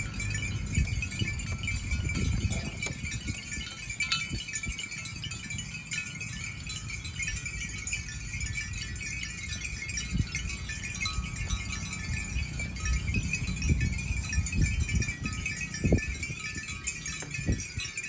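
Many bells on a walking herd of water buffalo clinking and jingling continuously, over a low rumble, with a few dull thuds near the end.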